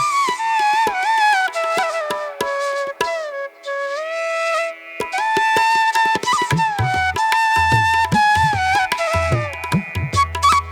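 Background music: a bamboo flute playing a gliding Indian classical melody, joined by tabla strokes about halfway through.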